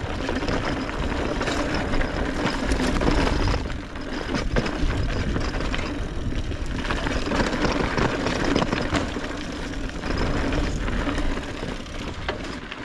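Mountain bike rolling over a dirt trail, its frame and parts rattling over bumps, with wind buffeting the microphone.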